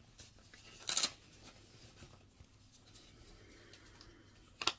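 Paper packaging being handled: two brief rustles, one about a second in and one near the end, with only faint handling noise between.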